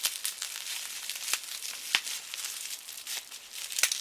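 Packing tape being peeled off a wrapped parcel, with the wrapping crinkling and a few sharp crackles.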